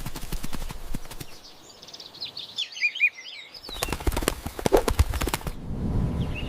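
Cartoon sound effects: a rapid clattering of clicks, then a few short bird chirps, then more rapid clattering, with a low rumble coming in near the end.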